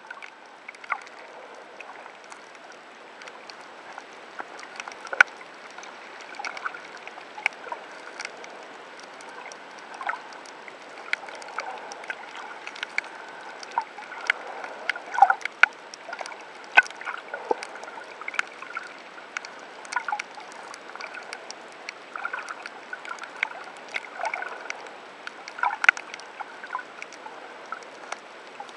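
Underwater sound picked up by a submerged camera: a steady hiss with irregular sharp clicks and crackles, a few a second, some much louder than the rest.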